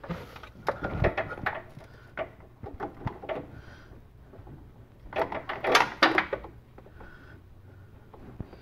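Handling noise as a clutch master cylinder hose is worked behind the brake booster in a car's engine bay: short scrapes, rubs and light knocks of the hose and hand against the parts, loudest in a burst of rubbing about five to six and a half seconds in.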